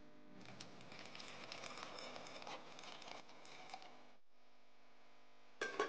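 Dry penne pasta poured from a glass bowl into a pot of boiling water: a faint patter of many small clicks as the pieces drop in, lasting about four seconds, then a short knock near the end.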